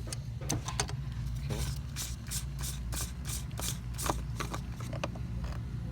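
A run of short clicks and scrapes, about two to three a second, from an oil filter wrench working the plastic oil filter housing loose, over a steady low hum.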